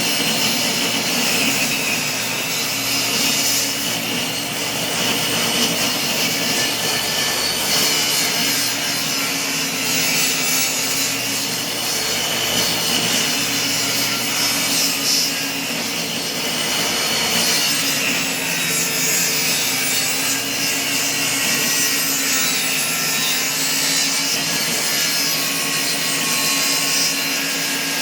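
Table saw running steadily while ripping long wooden strips, its blade cutting through the wood without a break.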